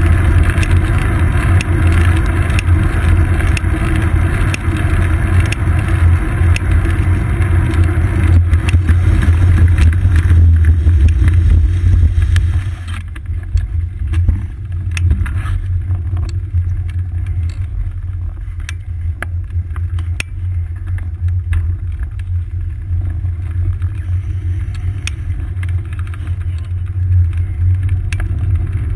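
Wind and road rumble on a seat-post-mounted camera as a road bike rides along a paved path: a loud, steady low rumble. About halfway through it drops and quietens as the bike slows, leaving a softer rumble with scattered clicks and knocks.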